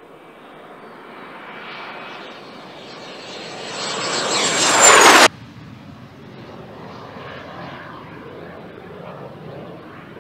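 Soko G-2 Galeb's single Rolls-Royce Viper turbojet in flight: jet noise swells to a loud peak with a high whine about five seconds in, then cuts off suddenly, and fainter jet noise follows.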